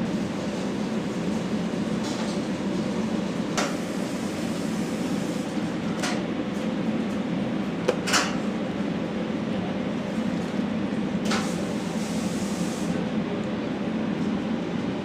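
Steady low hum of kitchen ventilation, with a few light clicks and knocks of handling on top. The loudest knock comes about eight seconds in.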